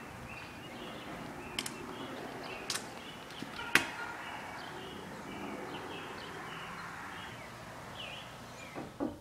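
Birds chirping over steady outdoor background noise, with a few sharp clicks; the loudest click is about four seconds in.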